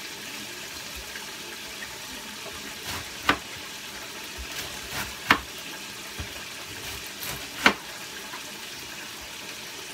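A kitchen knife cutting through a head of cabbage and knocking down onto a plastic cutting board, a few sharp chops, the loudest about 3, 5 and 8 seconds in. Under it, a steady hiss from the pot of cabbage simmering on the stove.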